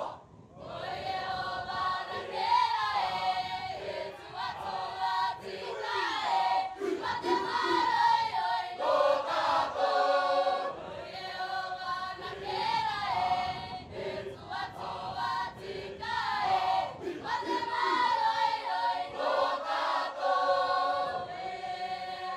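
A large group of voices singing a Cook Islands song together in chorus, phrase after phrase, with brief pauses between the phrases.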